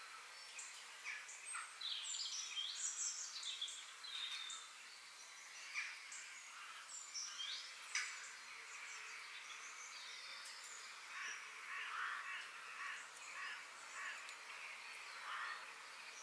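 Several forest birds singing and calling together: a dense chorus of quick chirps, trills and whistled notes, with harsher, rasping calls joining in the second half.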